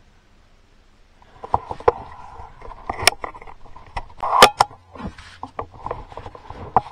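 Handling noise from a .50 calibre AEA Element Max air rifle just after a shot: scattered clicks, knocks and rattles, with one sharp clack, the loudest, about four and a half seconds in.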